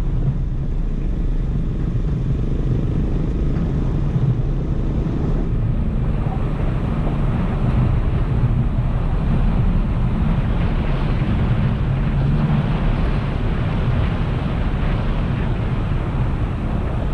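Toyota Tacoma pickup driving along a gravel track: its engine runs steadily under the rumble and crunch of tyres on loose gravel. The tyre noise grows louder about six seconds in.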